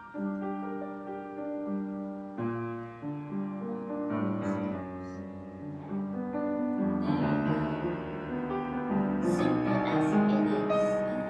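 Background piano music: sustained notes and chords, growing fuller partway through.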